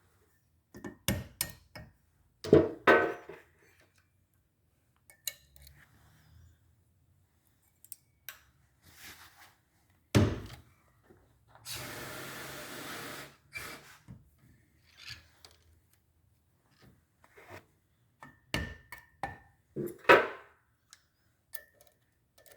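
Irregular knocks, clunks and metal clatter from hand tools and valve-train parts (valve springs, retainers, keepers) being removed from a Subaru SOHC cylinder head, with a steady rushing noise lasting about two seconds in the middle.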